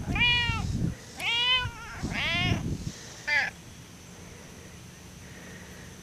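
Domestic cat meowing four times in quick succession, the last meow short.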